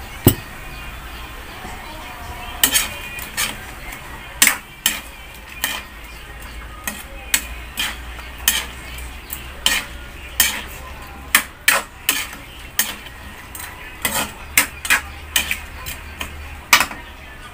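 Spatula stirring shrimp in a stainless steel wok, clinking and scraping against the pan in irregular strokes, about one or two a second.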